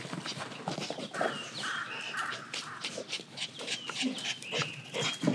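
A dog panting, a few quick breaths about half a second apart, among small clicks and taps.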